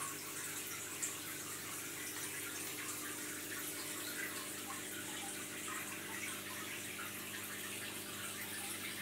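Aquarium water trickling and splashing steadily, with a faint steady hum underneath. There is one small click about a second in.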